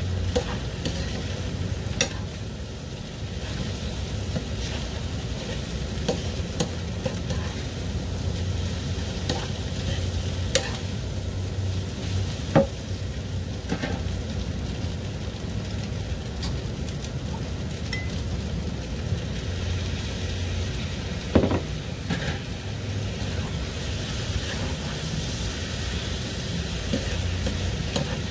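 Rice noodles and vegetables sizzling in a frying pan as they are stir-fried and turned with tongs, with a few sharp clicks of utensils against the metal.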